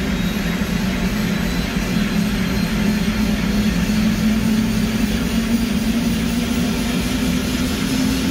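Helicopter engine and rotor running on the ground just after start-up, heard from inside the cabin: a loud steady drone whose low hum slowly rises in pitch.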